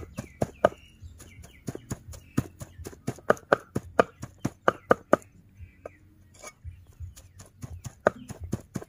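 A large knife chopping cooked pork on a round wooden chopping block: quick, sharp knocks of the blade through the meat into the wood, several a second. The chopping thins out to a few scattered strikes a little past the middle, then picks up again in a short run near the end.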